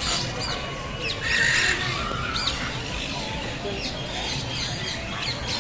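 Many caged birds calling at once: a jumble of short chirps and squawks, with a louder, harsher squawk about a second in.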